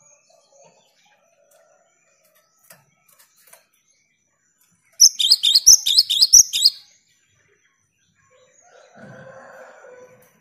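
Cinereous tit (gelatik batu) singing a loud, rapid burst of repeated high two-note phrases for about two seconds, midway through; a fainter, lower sound follows near the end.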